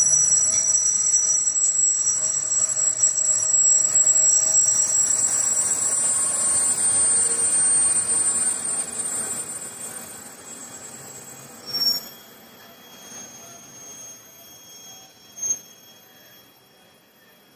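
Freight train of flat wagons hauled by an ET22 electric locomotive rolling along the track with a steady rumble and a thin, high-pitched wheel squeal. It fades away after about eight seconds, and two short sharp sounds come near the end.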